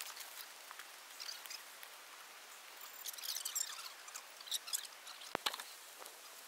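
Faint scraping and rustling of people working dry forest soil by hand and moving about in the trench, with irregular scratchy crackles. Two sharp knocks come close together about five and a half seconds in.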